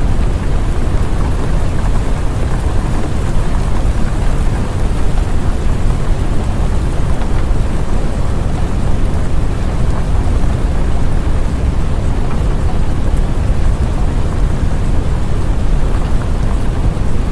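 Steady, unbroken rain ambience with a deep constant rumble beneath it and no separate thunderclaps.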